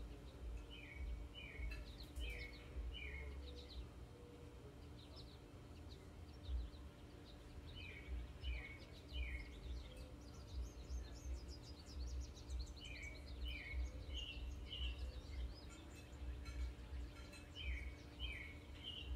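A songbird singing short phrases of three or four repeated notes, heard four times over, with a faster run of high, thin notes in the middle. A low background rumble runs underneath.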